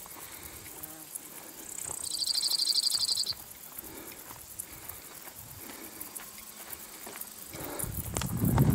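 A cricket-like insect gives one high, rapidly pulsed buzzing trill, about a second and a half long, starting roughly two seconds in. A low rustle builds near the end.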